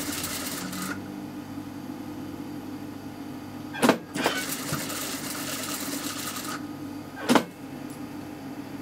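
Toyota industrial sewing machine: a steady motor hum, with the needle running in two short bursts of stitching, a brief one at the start and a longer one from about four to six and a half seconds in. Two sharp knocks, the loudest sounds, come just before the second burst and about seven seconds in.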